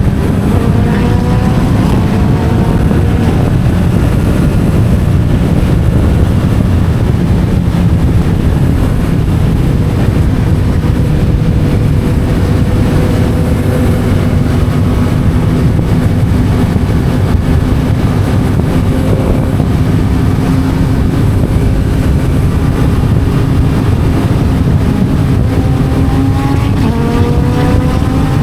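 Yamaha MT-07's parallel-twin engine running through an Akrapovič titanium exhaust on the move. It rises in pitch under acceleration at the start, holds a fairly steady cruise, then revs up again near the end.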